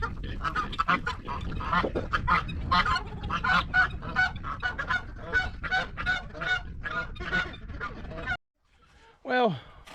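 A flock of geese honking, many short calls overlapping at a few per second, until the sound cuts off suddenly near the end.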